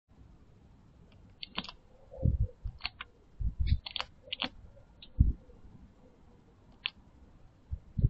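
Magpie pecking at a nut in its shell on a wooden platform: irregular sharp clicking taps of the beak, some in quick runs of two or three, with a few dull thumps in between.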